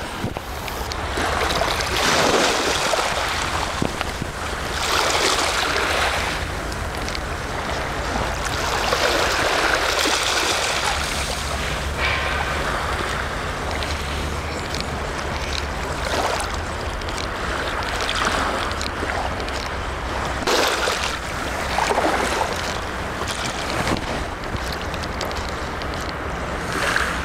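Sea waves washing onto the shore, surging every few seconds, with wind rumbling on the microphone.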